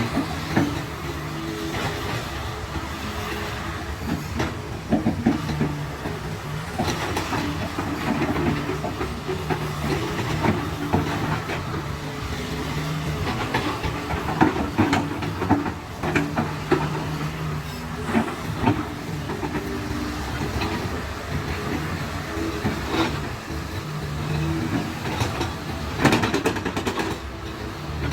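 Excavator's diesel engine running under changing load, its note rising and falling in spells, with frequent clanks and knocks of metal and rock as it works the slide.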